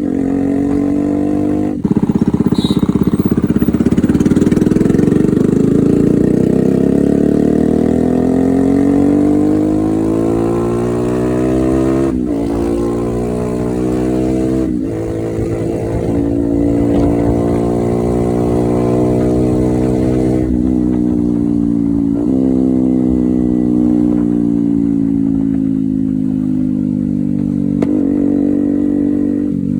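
Yamaha R15's modified 150cc single-cylinder engine being ridden, its note climbing and falling with the revs over and over. Several brief sharp dips break the note where the rider shifts gear.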